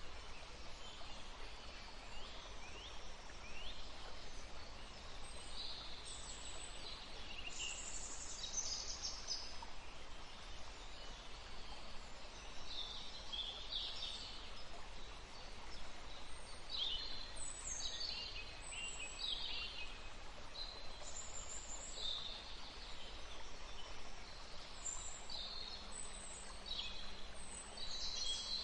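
Woodland stream running in a steady rush, with small birds chirping and calling again and again over it.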